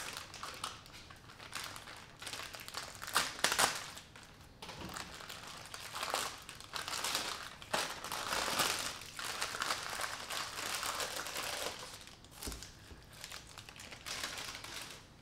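Plastic wrapper of a package of empanada dough discs crinkling and rustling as hands open it and work the stack of discs loose. Irregular crackles throughout, with the sharpest ones about three seconds in.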